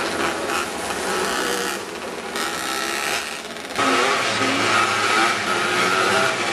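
Engines running, a steady mechanical noise that gets louder with a steady drone about four seconds in.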